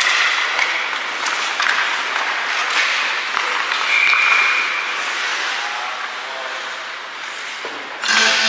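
Crowd of spectators in an ice rink clapping and cheering, with a brief high tone about four seconds in. Arena music with guitar cuts in near the end.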